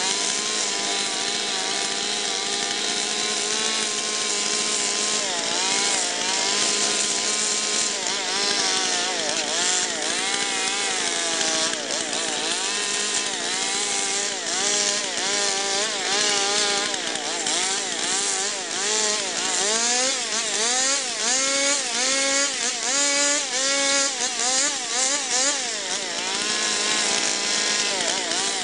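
Stihl two-stroke chainsaw carving into a log, its engine note rising and falling over and over as the throttle is worked, with quicker, deeper swings in the second half.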